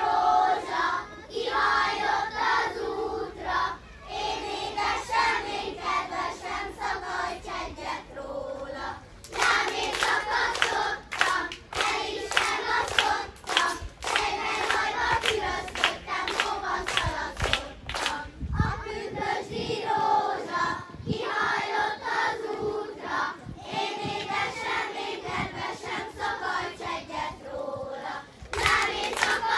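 A group of children singing a folk song together; from about nine seconds in, sharp rhythmic hand claps join the singing, thinning out around nineteen seconds and picking up again near the end.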